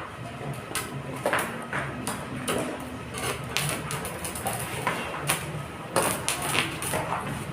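Irregular metal knocks and clicks from hand work in a welding workshop, over a steady low hum.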